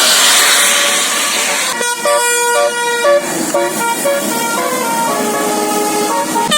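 A bus's Basuri 'telolet' musical air horn plays a quick tune of short, stepping notes, starting about two seconds in after a loud rushing hiss.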